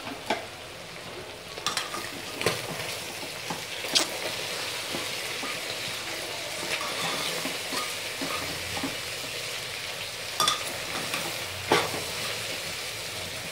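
Mutton pieces and onion sizzling as they fry in a pressure cooker pot, stirred with a spoon that knocks against the metal pot about half a dozen times.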